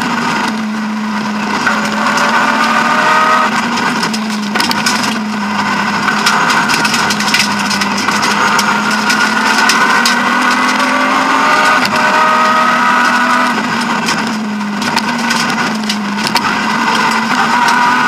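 BMW E36 M3 rally car's straight-six engine running hard at high revs, heard from inside the stripped cabin. Its pitch climbs under acceleration and drops briefly several times at shifts or lifts. Throughout there is a clatter of knocks and rattles from the car working over the road.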